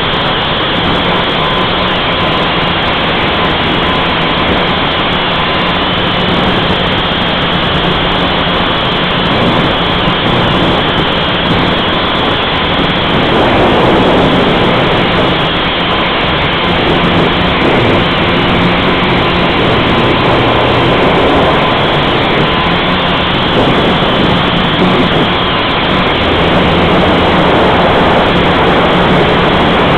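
Blade 180 quadcopter's motors and propellers running steadily, heard close up from on board, with a dense rush of wind on the microphone.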